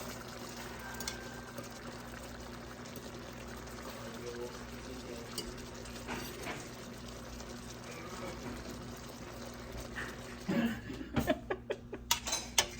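A steady hiss, then a quick series of clinks and clatters of dishes and utensils near the end.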